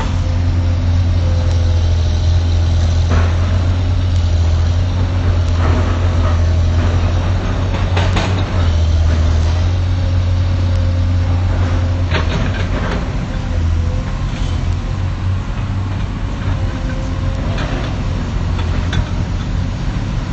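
Excavator's diesel engine running with a steady low drone and a faint steady higher whine, with scattered knocks and scrapes over it.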